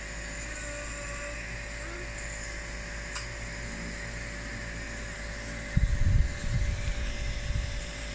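Nebulizer compressor running with a steady hum. A burst of loud, low thumps comes about six seconds in.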